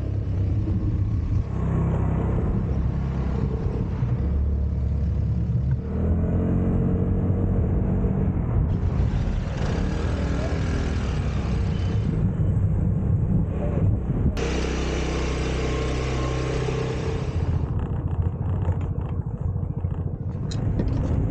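Vespa scooter engine running on the move, with wind and road rumble on the microphone. The engine pitch rises and falls as it speeds up and slows. The sound changes abruptly several times where short clips are cut together.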